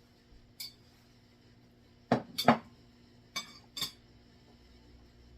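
Dishes and cutlery clinking: a light click, then two loud sharp knocks about two seconds in and two more about a second later, as a plate is handled.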